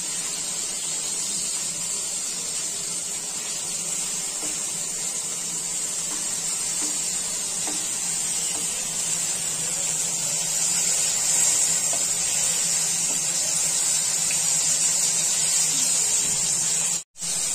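Whole bombil (Bombay duck) shallow-frying in hot oil in a nonstick pan on full gas: a steady sizzle. It cuts out for a moment near the end.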